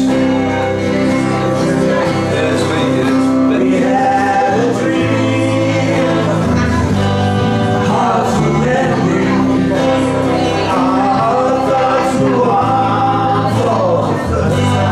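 Live music: a small band playing a song, with several men's voices singing together.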